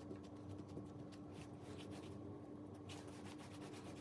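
Faint rubbing and rustling of hands handling bread dough on a work surface, in scattered short strokes, over a steady low hum.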